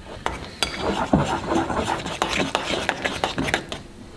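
A spoon stirring a pudding mix in a ceramic bowl: quick, irregular clinks and scrapes against the bowl, starting just after the start and stopping shortly before the end.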